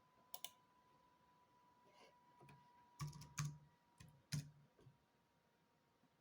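Scattered keystrokes and clicks on the old HP 630 laptop's keyboard: a quick pair of clicks, then a few more, each with a soft low thud. A faint steady tone sits underneath.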